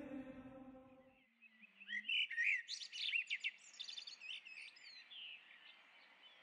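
Sung chant fading out over the first second, then birds chirping and singing in quick, high, sweeping notes, busiest in the middle and thinning toward the end.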